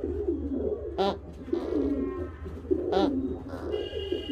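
Pigeons cooing steadily, with two short sharp clicks about two seconds apart, over a low hum.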